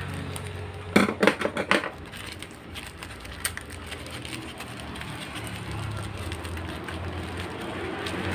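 A quick run of sharp crackles and clicks about a second in, then one more click: the sealed plastic packaging of a DDR4 laptop RAM module being handled and opened. A faint low hum underneath.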